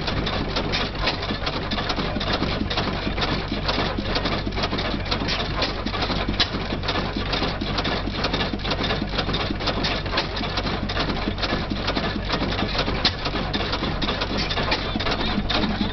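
Antique Olds hit-and-miss stationary gas engines running: a rapid, steady mechanical clatter over a low hum, with a couple of sharper clicks standing out.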